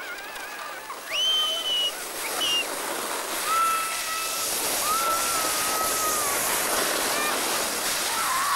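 Children squealing and crying out in long, high, held yells as they ride a sled down a snowy hill, with a sharp squeal about a second in. A steady rushing hiss grows under the yells as the sled picks up speed.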